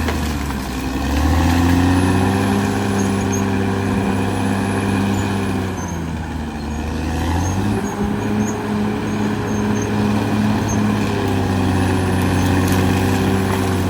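Caterpillar D6R XL bulldozer's diesel engine running hard, its revs falling and climbing back about a second in, sagging again for a couple of seconds around the middle, and dipping briefly near the end.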